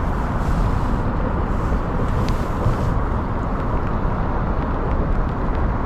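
Steady low rumbling of wind buffeting the microphone, with a few faint ticks near the top of the range.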